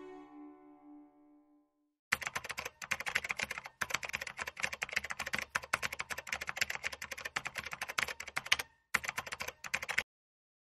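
The last held notes of soft background music fade out, then rapid computer-keyboard typing clicks follow as a typing sound effect, in three quick runs with two short pauses, stopping shortly before the end.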